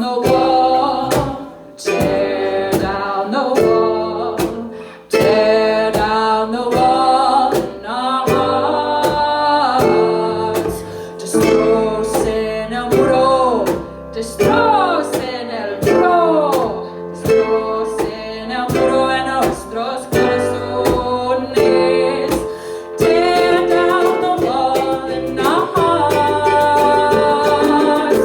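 A woman singing live, accompanied by a strummed acoustic string instrument.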